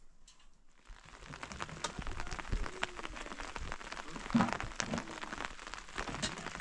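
Heavy rain falling on a hard surface, many separate drop hits ticking irregularly. It starts about a second in after a near-quiet moment, with one louder thump a little past the middle.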